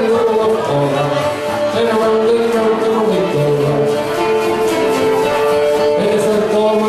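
Live old-time string band playing a dance tune, with a fiddle carrying the melody over guitar and bass notes.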